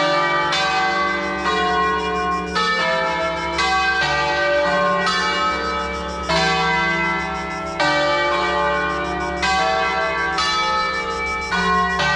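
Church bells ringing in a tower: several bells of different pitch struck one after another in an uneven sequence, a new strike about every second, each bell ringing on under the next.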